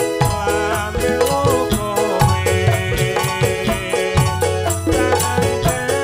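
Instrumental Javanese Ndolalak dance music: a melody of sustained pitched notes over a steady beat of drums and jingling percussion.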